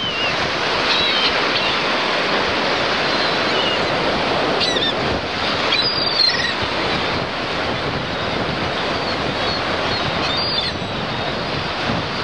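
Waves washing onto a shore with wind blowing, a steady rushing noise, with a few brief high bird calls over it.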